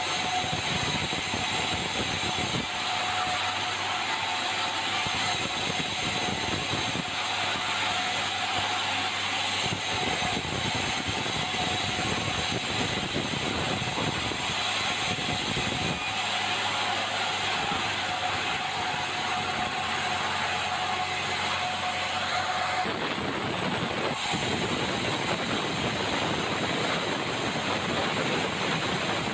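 Sawmill saw and its engine running steadily, with a high steady whine over the machine noise; about three-quarters of the way through the whine drops away and the sound grows fuller and deeper.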